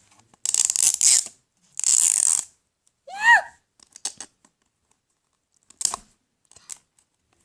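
Plastic wrapping of a LOL Surprise doll package torn open in two short bursts, followed by a brief vocal sound about three seconds in and a few light clicks of handling.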